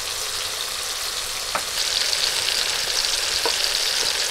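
Mustard oil sizzling steadily in a pan of frying tomatoes, a little louder from about two seconds in. A few light clicks of a spoon stirring ground mustard paste with water in a clay bowl.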